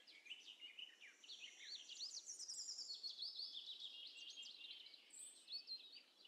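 Faint birdsong: quick twittering chirps with many short rising and falling notes.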